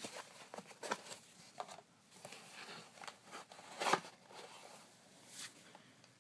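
Packaging being handled during an unboxing: a run of crinkles, scrapes and clicks, the loudest about four seconds in.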